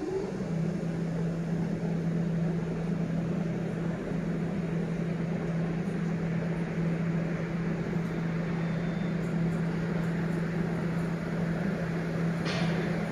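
Electric locomotive hauling a passenger train as it approaches the platform: a steady low hum with an even pitch, over a background rumble. A brief hiss near the end.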